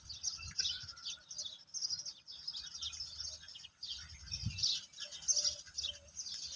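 Many small birds chirping in a dense, continuous chorus of short, high, falling chirps. Near the end a low note repeats about every half second.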